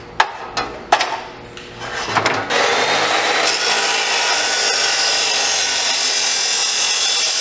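A few knocks and clatter as the pipe is handled, then from about two and a half seconds in a power saw cutting through a length of exhaust pipe with a steady, loud noise.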